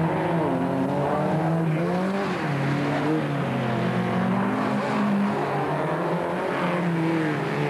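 Engines of several folkrace cars revving hard as they race past, their pitch rising and falling with the throttle.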